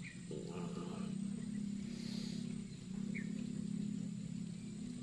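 A steady low engine drone from a motor off in the distance, dipping briefly about halfway through, with two short high chirps over it.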